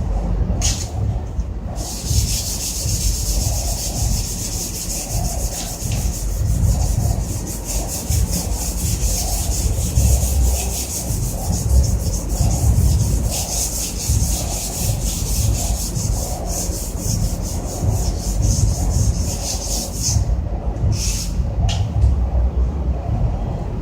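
Water heater's casing being rubbed down with an abrasive for cleaning, in rapid repeated scraping strokes that stop briefly near the start and again near the end, over a steady low rumble.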